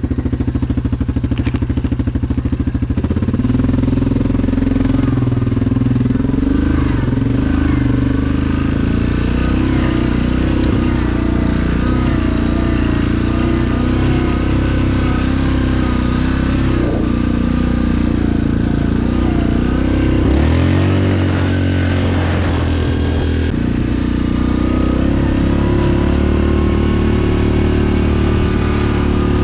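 Vehicle engine running under load, its pitch stepping up about three seconds in and changing again a little after twenty seconds.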